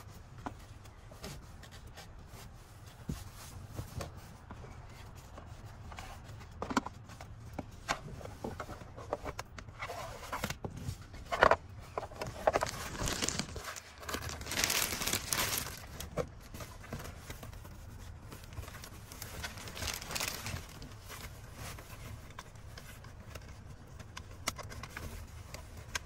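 Handling noises of a plastic infant car seat base being positioned on a back seat: scattered knocks, clicks and scrapes, with plastic-bag crinkling in bursts around the middle.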